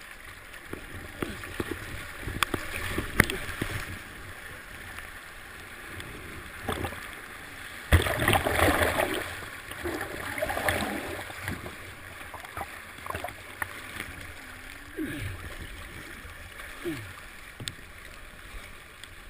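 Whitewater rushing and splashing close around a kayak on a river drop, with scattered knocks and water slapping near the camera. A sudden loud splash about eight seconds in churns on for a few seconds.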